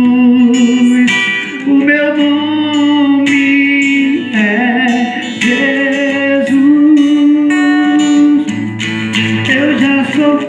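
A man singing long held notes with vibrato, accompanied by a strummed acoustic guitar.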